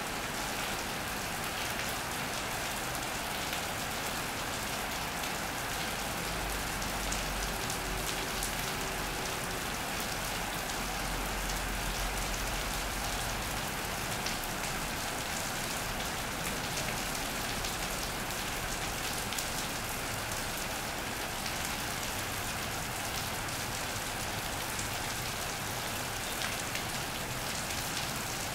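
Steady rain drumming on an iron roof and the wet ground, a dense hiss full of fine drop ticks. A low rumble joins it for several seconds near the middle.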